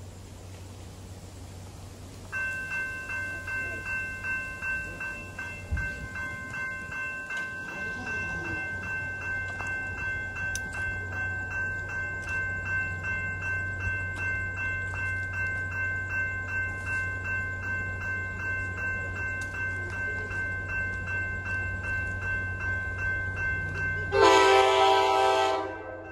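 Railroad grade-crossing bell starts about two seconds in and keeps ringing with a steady pulsing ding, the warning that a train is approaching. Near the end a locomotive air horn sounds one loud chord blast lasting about two seconds.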